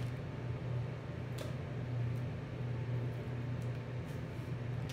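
Steady low machine hum, like a running fan motor in a small tiled room, with a few faint clicks and crinkles of foil paper being handled.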